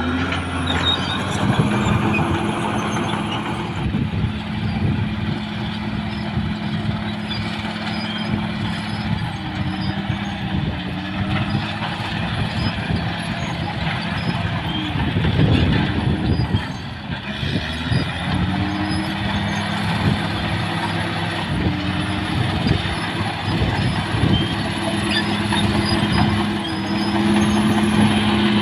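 CAT D6R XL bulldozer's diesel engine working under load, its engine note dropping and rising several times as the throttle and load change.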